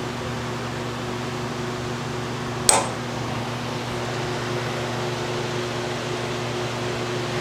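Steady mechanical hum of shop machinery or a fan running, with a single sharp metallic clink a little under three seconds in.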